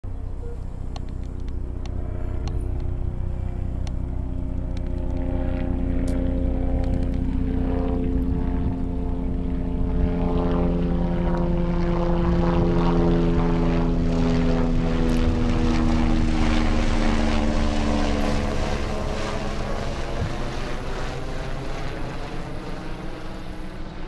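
A droning engine passing by, its pitch sliding slowly down as it goes, loudest about halfway and fading toward the end.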